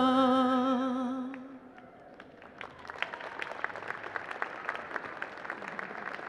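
A woman's voice holding the last sung note of a Navajo song with a wavering vibrato, fading out about a second and a half in; then the audience begins applauding.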